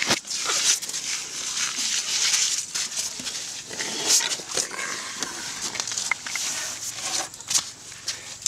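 Close rustling and scuffing noise with scattered short knocks, made by a baby elephant moving and brushing right against the recording phone in the dirt.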